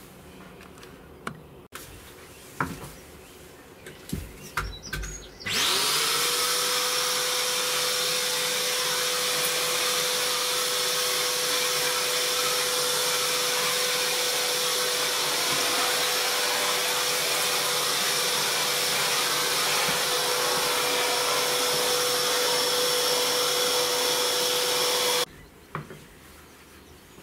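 Vacuum cleaner switched on about five seconds in, its motor spinning up to a steady whine and running evenly for about twenty seconds before it stops suddenly. A few light knocks come before it starts.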